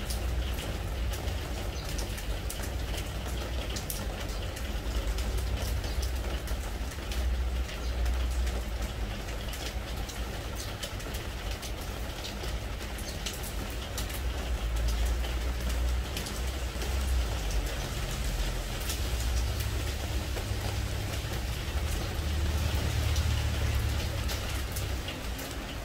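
Spring rain falling on a pressure-treated wooden deck: a steady patter with many separate drop taps, over a low rumble that swells and fades.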